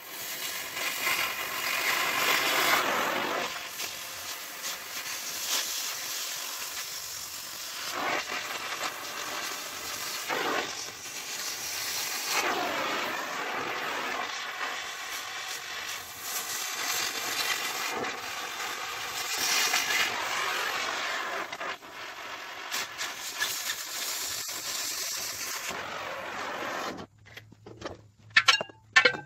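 Steel air-compressor tank being cut with a hand-held metal-cutting tool: a harsh, hissing cutting noise with whines that rise and fall as the cut loads and eases. It stops suddenly near the end, leaving a few clicks.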